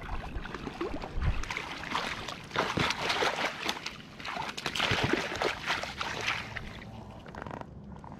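Water splashing and sloshing as a hooked rainbow trout thrashes at the surface and is scooped into a landing net, in irregular bursts that die down near the end.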